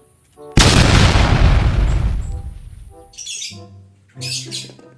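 A grenade explosion sound effect: a sudden loud boom about half a second in that fades out over about two seconds.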